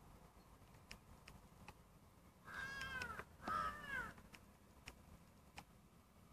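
Two drawn-out animal calls, one after the other a little past the middle, each rising and then falling in pitch.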